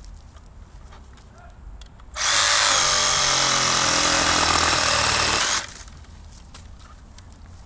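Denzel cordless reciprocating saw running for about three seconds, starting sharply about two seconds in and cutting off suddenly.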